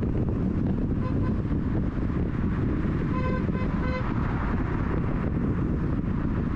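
A car driving on a city road, with a steady rumble of road and wind noise. A vehicle horn gives short toots about a second in and three quick toots around the middle.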